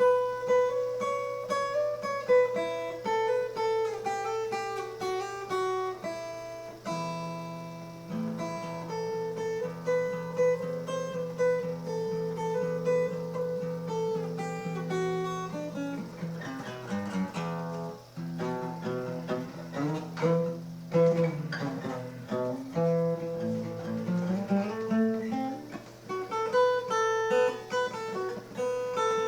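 Acoustic guitar music: picked and strummed notes over a sustained low note, with a quick run of notes about two-thirds of the way through.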